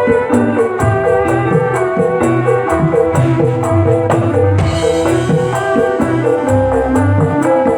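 Loud music playing back: a melody over bass notes and a steady percussion beat with regular high ticks. A brighter hiss layer, like a cymbal, comes in about halfway.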